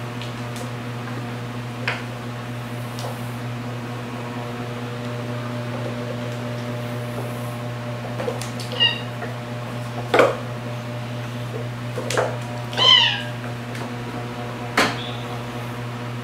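A cat meows several short times in the second half, some calls rising and then falling in pitch. A steady low hum sits beneath the calls.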